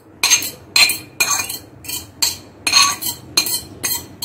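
Metal fork scraping and clinking against a glass bowl in quick repeated strokes, about two a second, as chopped tomato and cucumber are pushed out of it into another glass bowl.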